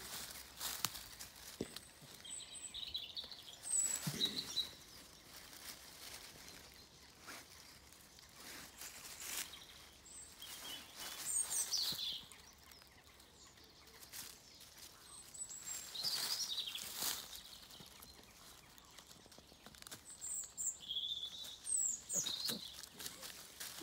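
Songbirds singing in woodland: short high phrases that slide down in pitch, repeated every few seconds. Between them comes the rustling patter of dry leaf litter as animals move over it.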